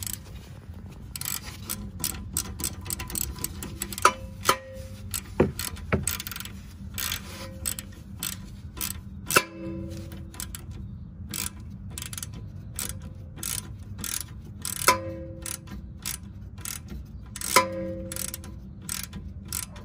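Hand tools working on suspension bolts: irregular clicking, in places in quick runs, typical of a ratchet being worked. A handful of louder metallic clanks each ring briefly.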